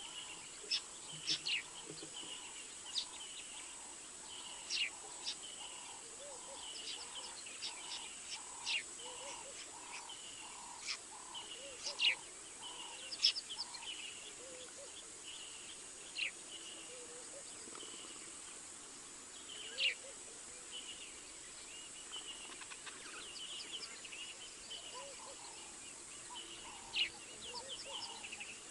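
Wild birds calling: many short, sharp chirps and quick downward-sweeping notes, with a low note repeated at a steady pace through the first half and again near the end, over a steady high hiss.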